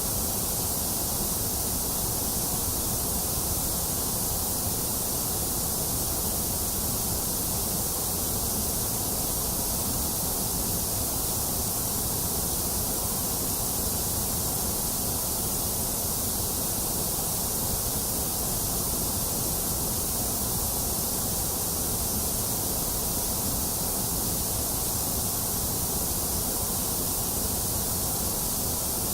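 Steady electronic white noise: an even, unchanging hiss, strongest in the high and low tones.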